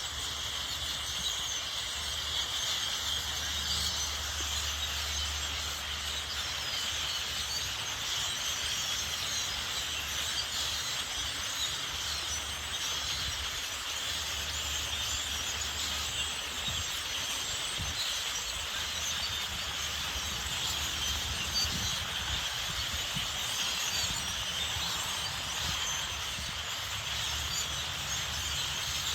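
A huge flock of birds in a tree, thousands of them calling at once in a dense, unbroken chattering chorus.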